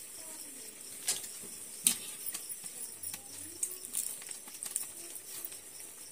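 Dough rotis deep-frying in oil in an iron karahi: a steady sizzle, with a few sharp clinks and scrapes of the slotted ladle against the pan, the loudest about one and two seconds in.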